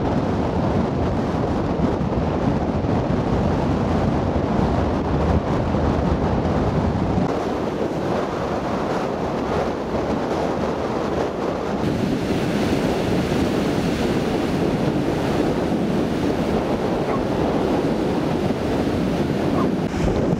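Rough North Sea surf breaking and washing in between wooden pile groynes, a steady rush of water. Wind buffets the microphone with a heavy low rumble for about the first seven seconds, then eases, leaving the hiss of the surf.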